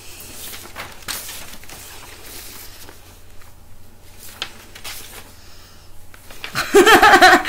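Quiet small room with faint rustling and shuffling movement. Near the end, a woman's voice makes a loud, high, wavering vocal sound lasting under a second.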